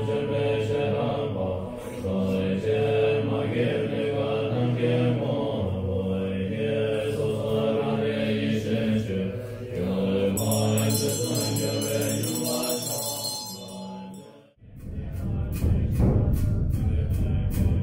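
Tibetan Buddhist monks chanting a puja liturgy in unison in low voices, moving in held, stepped pitches. A high ringing joins for a few seconds past the middle; about 14.5 s in the sound cuts to a different passage of steady, rhythmic strikes.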